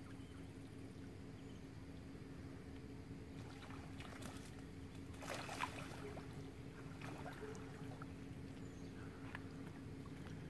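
Faint splashing and paddling on the water as a duck rushes across the surface chasing other ducks, loudest about halfway through, over a faint steady low hum.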